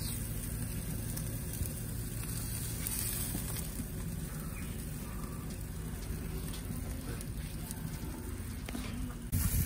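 Ribeye steaks sizzling on the grates of a hot propane grill: a steady hiss with a few faint pops.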